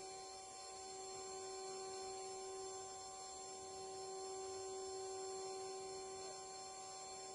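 The two 800 W spindles of a dual-head mini CNC router run with a steady whine while the bits mill wood.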